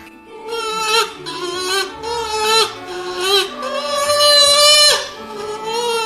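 Music carried by a high, wavering voice-like melody in held notes that break off every half second to a second, with the longest note about four to five seconds in.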